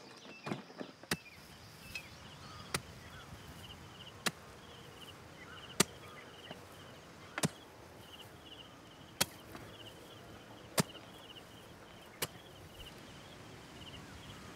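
A hoe-like digging tool striking dry, hard earth in slow, regular strokes, about one every one and a half seconds, with faint insect chirping.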